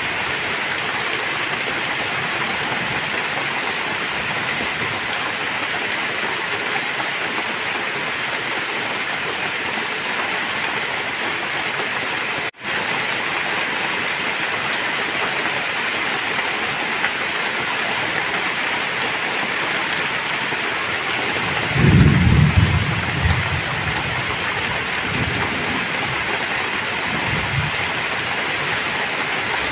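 Heavy rain falling in a steady downpour. About two-thirds of the way through comes a deep rumble of thunder, the loudest thing here, trailing off in a few weaker rumbles. The sound cuts out for an instant near the middle.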